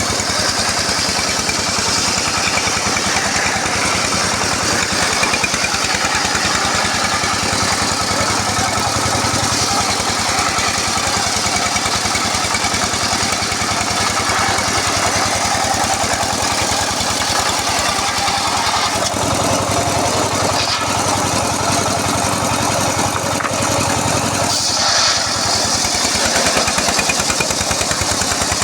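Engine-driven circular sawmill running steadily while sawing teak, the engine's firing heard as a fast even pulse under a higher hiss of the blade. Its low note shifts about two-thirds of the way in, with a brief swell near the end.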